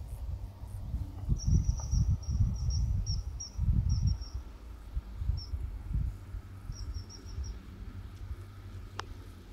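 An insect chirps in short trains of rapid high-pitched pulses, in three bursts with gaps between them. Low rumbling buffets hit the microphone, strongest in the first half. A single brief click sounds near the end.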